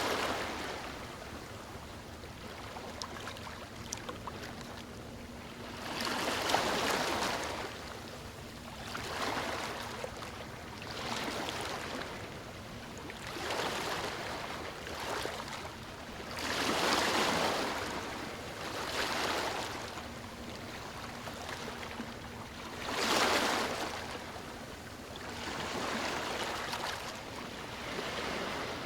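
Sea waves washing onto the shore, the surf swelling and fading every few seconds, with the biggest surges about two-thirds of the way through.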